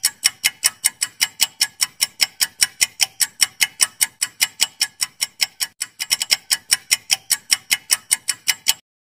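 Countdown timer sound effect: clock-like ticking, about five sharp ticks a second, stopping suddenly shortly before the end.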